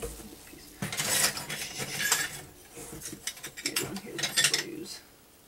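Rummaging through packing materials and ceramic pieces: irregular clatters, knocks and rustles in two busy spells, dying away near the end.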